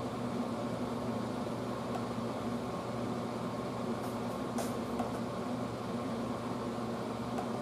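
Room air conditioner running: a steady hum and whoosh, with a few faint ticks about halfway through.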